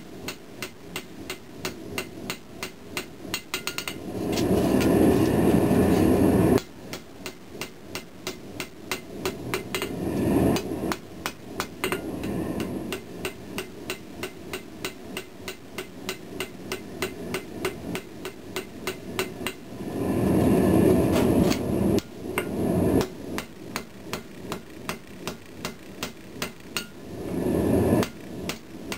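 Ball-peen hammer striking a hot pattern-welded steel blade on an anvil in a steady run of blows, about three a second, drawing the blade out to shape. Several times a louder rushing noise rises over the blows for a second or two, then stops suddenly.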